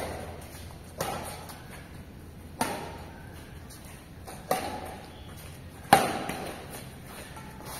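Badminton rackets striking a shuttlecock back and forth in a rally: five sharp hits one to two seconds apart, each with a short echo. The hit about six seconds in is the loudest.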